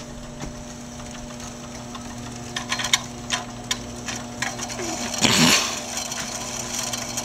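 Treadmill drive motor running the ghost rig's bicycle-rim drive wheels with a steady hum. A few light clicks come about three seconds in, and a short louder rushing noise comes about five seconds in.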